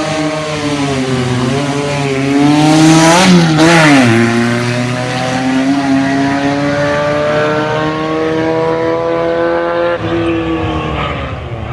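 Buggy engine revving hard, loudest with a burst of hiss about three seconds in, then its pitch drops and climbs steadily as it pulls through a gear, falling away near the end.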